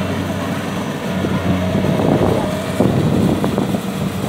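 Kubota DC70 combine harvester's diesel engine running steadily as it cuts and threshes rice, a steady low hum. A few short rustles and knocks come through in the middle.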